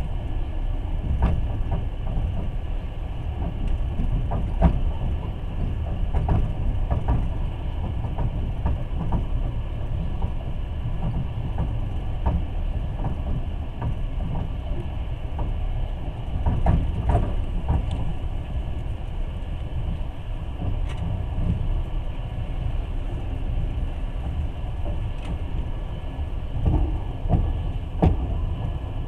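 Passenger train running along the track, heard from inside the carriage: a steady low rumble with scattered knocks and clacks of the wheels and carriage, which bunch up several times.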